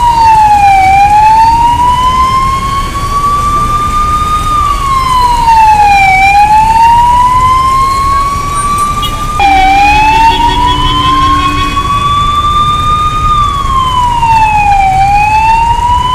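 Ambulance siren wailing over a low traffic rumble: its pitch climbs slowly and then drops quickly, repeating about every five seconds. About halfway through, the sweep breaks off and restarts abruptly.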